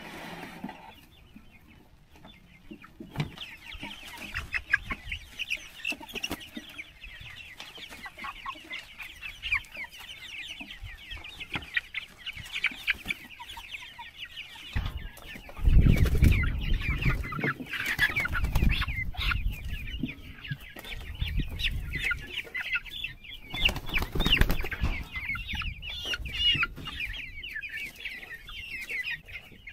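A flock of young white ranger broiler chickens peeping and chirping continuously, starting about three seconds in. Bursts of low rumble come through in the middle and are loudest about halfway through.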